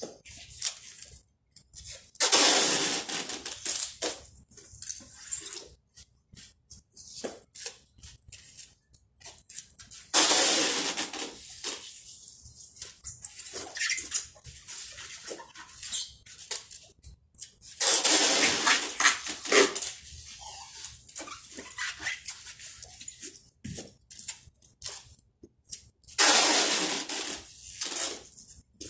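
Packing tape pulled off the roll onto a large cardboard box in four long, loud rasping pulls, each two to three seconds and about eight seconds apart, with small crinkles and taps on the box in between.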